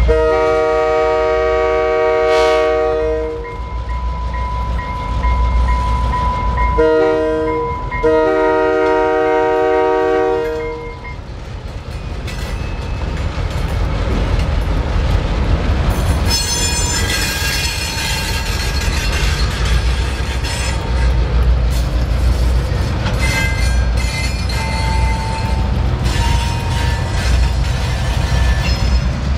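Diesel freight locomotive horn on an SD38AC sounding a long blast, a short blast and another long blast over the low rumble of the diesel engines. After that the locomotives roll across the crossing with engines rumbling, wheel clatter and thin high wheel squeals.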